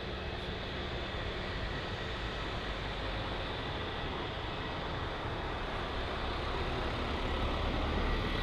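Jet engines of an easyJet airliner applying takeoff power on the runway: a steady rumble with a faint high whine, growing slightly louder toward the end.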